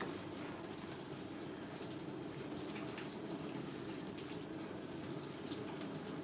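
AEG dishwasher running at the start of a 65° cycle, with a steady rush of water inside the machine and light splashing.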